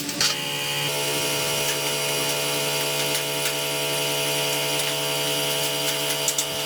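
A motor running at a steady, unchanging speed with a constant hum, starting about a quarter second in.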